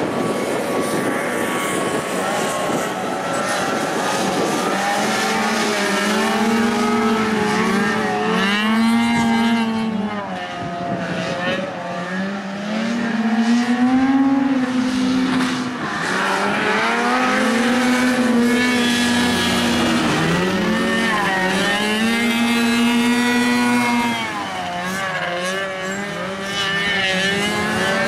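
Six-wheeled ATVs racing on a dirt track, their engines revving up and falling back again and again as the drivers throttle on and back off.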